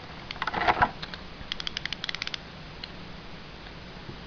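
Small plastic Beyblade launcher parts being handled: a few light clicks, then a quick run of rapid rattling ticks for about a second, then quiet handling noise.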